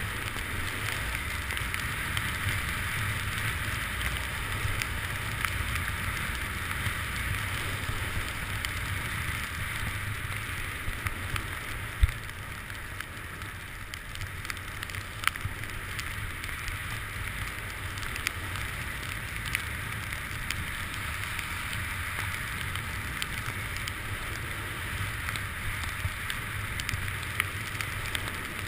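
Skis sliding and scraping steadily over groomed snow on a downhill run, over a low rumble of wind on the camera, with a few sharp knocks, the loudest about twelve seconds in.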